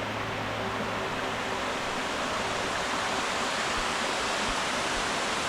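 Waterfall at Kitty's Gorge, water rushing in a steady, unbroken roar.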